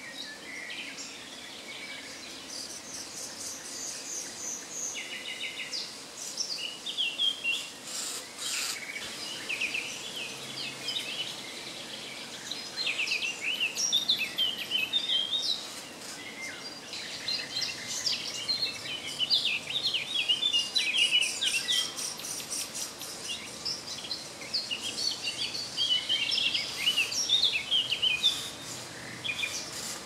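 Songbirds calling and singing: a busy, varied stream of short chirps, trills and whistles, with a few sharp clicks.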